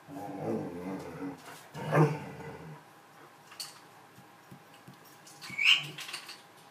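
An animal's low, drawn-out vocal sound lasting about a second and a half, then a loud short call about two seconds in and a higher, shorter one near the end.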